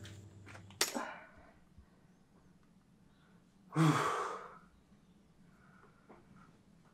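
A man lets out one deep sigh about four seconds in, after a sharp click near the start.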